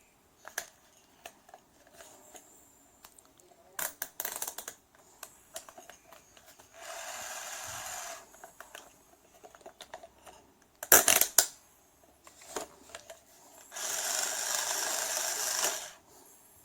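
Theo Klein Bosch II toy electric screwdriver whirring in two runs, one of about a second and one of about two seconds, among plastic clicks and rattles. A cluster of sharp clicks between the runs is the loudest sound.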